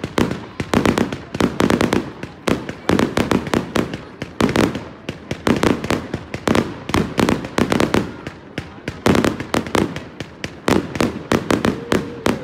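Fireworks display: aerial shells bursting in quick succession, a dense run of sharp bangs and crackles, several a second, without a break.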